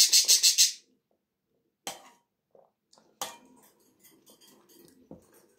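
Slurping hot soup off a spoon for about the first second. Then two sharp clinks of a metal spoon against a metal bowl, about two and three seconds in, with soft eating noises after them.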